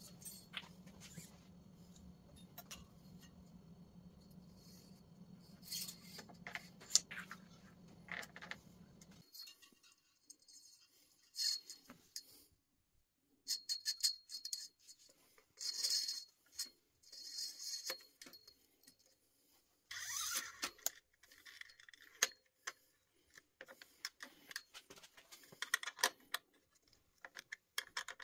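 Small metallic clicks, taps and rattles of a 1974 Schwinn LeTour's parts being handled: brake lever and cable work, then an Allen key on the front derailleur and the steel gear cable being threaded through its clamp. A low steady hum sits under the first nine seconds or so and stops abruptly.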